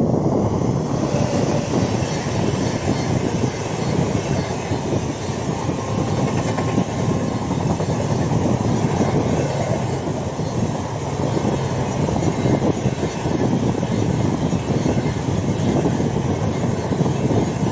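A passing train's coaches running on the rails, a loud, steady rumble and clatter of wheels over the track.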